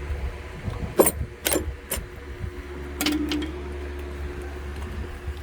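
Metal tools and engine parts clinking and clanking, four sharp strikes with a short ring, over a steady low hum.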